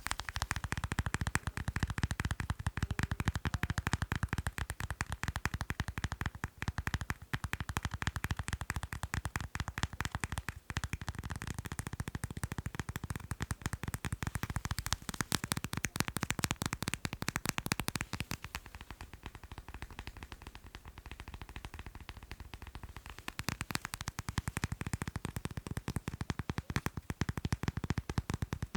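Fast, continuous finger tapping on macarons: a dense run of quick taps. Through a stretch about two-thirds of the way in the taps are softer and lighter, then they return to full strength near the end.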